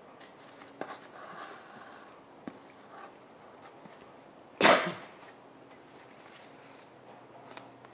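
Yarn being pulled through holes in a cardboard journal cover, with faint rustles and light taps. A person coughs once, short and loud, a little past halfway.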